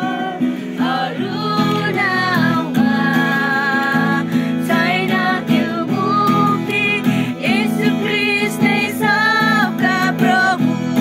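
Acoustic guitar strummed in steady chords as accompaniment, with women singing a melody over it.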